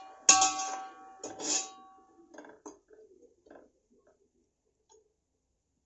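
A metal spoon knocking against the side of a large aluminium pot, each knock ringing on. Softer scrapes and taps follow for a couple of seconds as the frying onions and tomatoes are stirred.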